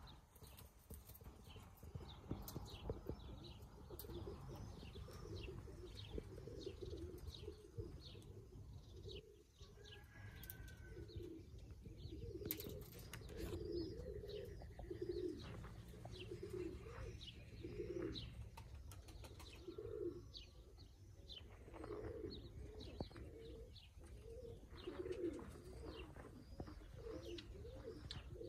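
Pigeons cooing, low calls repeating every second or so, with many quick high chirps of small birds over them and a steady low rumble underneath.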